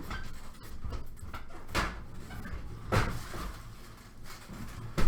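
A trading card being handled and fitted into a magnetic one-touch holder: two short airy swishes, and a sharp click at the very end as the case snaps shut.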